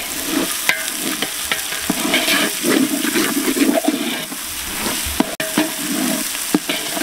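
Onions, tomatoes and green chillies sizzling in hot oil in a large aluminium pot, while a metal ladle stirs them, scraping and clicking against the pot many times.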